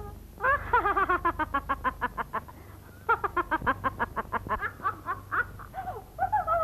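A woman laughing loudly in a high voice, a rapid 'ha-ha-ha' at about eight syllables a second with each one falling in pitch. It comes in two long runs with a short break between, then trails off into broken vocal sounds.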